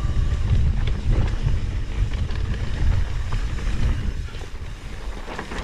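Wind buffeting the microphone over a Trek Fuel EX 8 mountain bike rolling down a dirt trail, its tyres and frame rattling with small knocks. It gets quieter about four seconds in.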